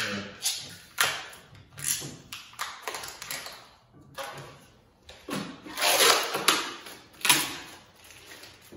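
Protective plastic film being peeled and ripped off a stainless steel tool-cabinet top: a series of short crackling tears, about one a second, with a longer, louder pull about six seconds in.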